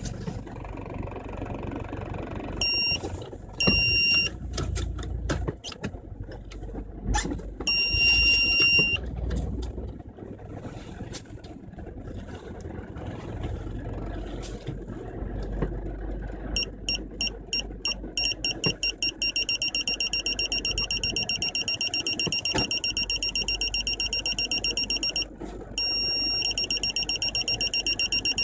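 Electronic warning beeper in a car: a few separate high beeps, then rapid beeps that run together into a continuous high tone, broken briefly near the end. Low engine and road rumble runs underneath.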